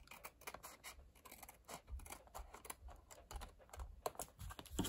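Small paper snips cutting along the edge of a card, trimming off the excess patterned paper: a run of faint, quick, crisp snips.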